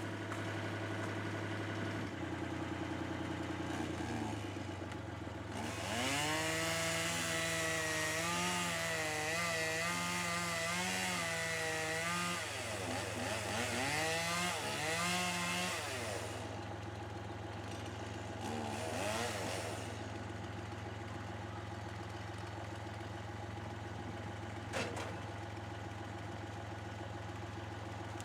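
A chainsaw runs from about six seconds in until about sixteen, its pitch wavering up and down as it cuts, then revs briefly again a few seconds later, over a steadily idling engine. A single sharp knock comes near the end.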